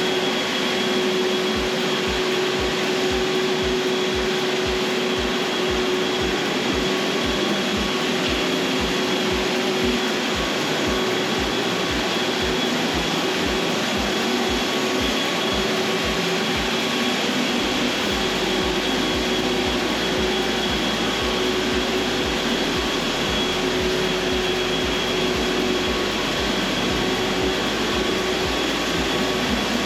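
An electric floor-care machine's motor running steadily, a constant whine over a broad rushing hiss.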